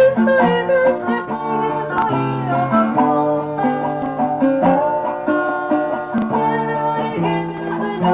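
Acoustic guitar being played, a continuous run of plucked notes and chords.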